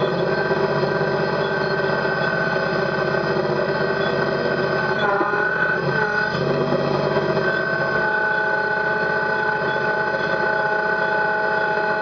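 Kubota BX compact tractor's three-cylinder diesel engine running steadily, with a high steady whine over it. The engine note briefly dips and wavers about five seconds in, then steadies again.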